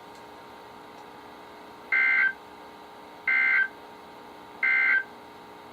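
Three short bursts of SAME end-of-message data tones on NOAA Weather Radio, a two-tone digital warble repeated a little over a second apart, marking the end of the alert. Under them runs a steady faint hiss and hum from the radio.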